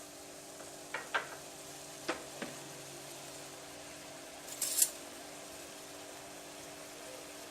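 Kitchen utensils clinking against a pan four times in the first few seconds, then a brief scratchy rattle, as coriander seeds are added to a kadha boiling in it.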